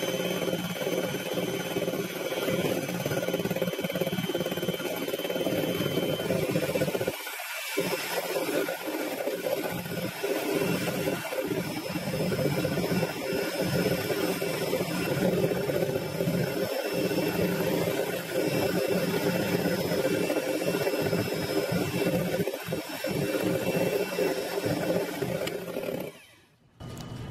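Electric hand mixer's motor running steadily at speed, its twin wire beaters whipping egg whites in a glass bowl, with a low hum and a high whine. The motor cuts off near the end.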